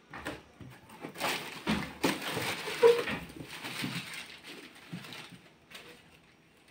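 Paper wrapping and a cardboard box rustling and crinkling as hands rummage through a box of mangoes, with small knocks and clicks. It is busiest in the first half, then softer.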